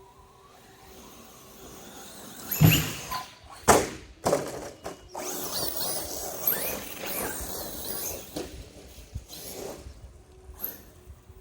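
Arrma Kraton RC truck jumping: two hard thuds about a second apart, the loudest sounds here, then several seconds of irregular clattering and scraping as the truck lands and tumbles.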